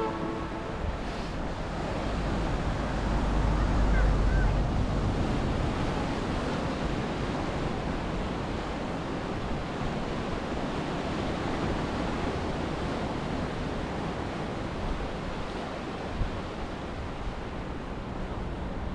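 Sea surf breaking over rocks and washing onto the shore, with wind buffeting the microphone. The surf swells loudest about four seconds in.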